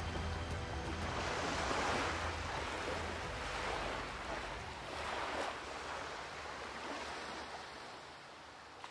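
Sea waves washing onto the shore in several slow surges of rushing noise, tapering off near the end.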